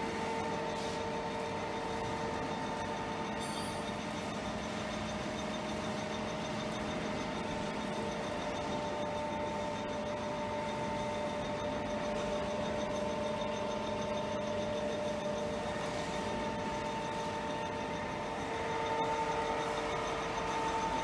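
Jones & Shipman 1311 external cylindrical grinder running without load: a steady hum from its motors, with a few held tones, rising a little in level near the end.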